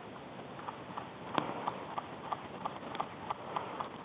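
Quick footsteps on dry forest ground, a run of short, even knocks about three to four a second, starting about half a second in.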